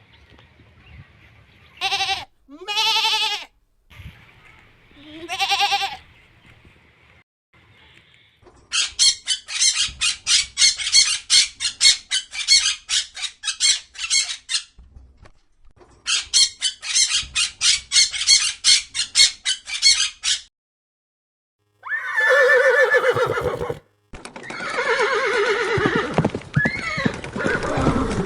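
A series of calls from different farm animals in turn. It opens with short pitched calls, then two long runs of rapid, shrill, squawking cries, then lower calls near the end.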